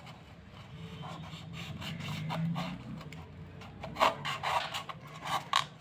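A disposable cup being cut down to half its height: rubbing handling noise, then several sharp clicks in the last two seconds as the cut goes through.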